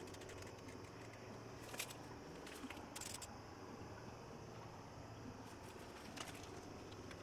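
Faint steady background hiss with a low hum, broken by a few soft clicks about two, three and six seconds in.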